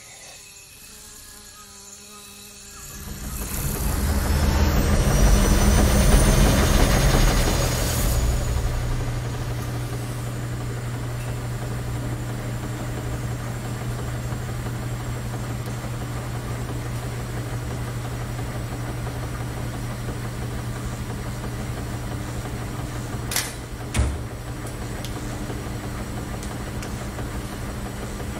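A swelling rush with a rising whistle comes in about three seconds in and settles into the steady low hum of washing machines running. Two sharp clicks come near the end.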